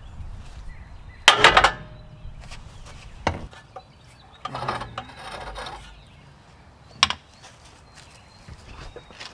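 Sharp metal knocks and clanks at the front steering knuckle and tie rod end of a Dodge Ram's steering linkage as it is worked loose: a loud knock about a second and a half in, another sharp knock a couple of seconds later, a rattling scrape around the middle, and a last sharp knock near the end.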